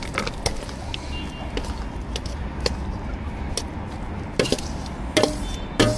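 Cleaver chopping braised food on a cutting board: irregular sharp knocks, getting louder and closer together in the last second and a half.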